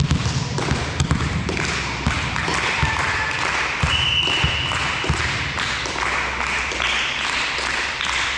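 Volleyball play echoing in a sports hall: a run of ball hits and thuds over a hall-wide hubbub. A brief high steady tone sounds about four seconds in.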